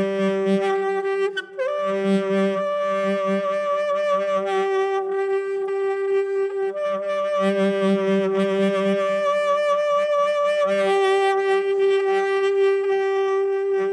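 Solo saxophone holding one long note, with a lower, pulsing second tone that joins and drops out several times. About a second and a half in, the note breaks off briefly with a quick slide in pitch.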